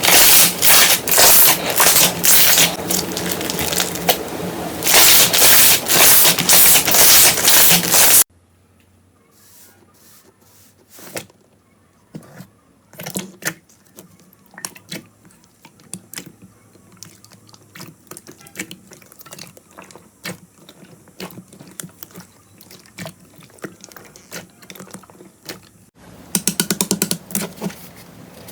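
Slime being squeezed and pressed by hand: loud, dense crackling for about the first eight seconds, then an abrupt change to quiet, sticky clicking and popping, and a short burst of rapid crackling near the end.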